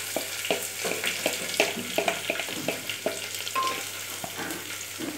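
Chopped onions sizzling as they drop into hot oil in a pressure cooker, with a wooden spatula knocking and scraping them off a plastic bowl, two or three knocks a second.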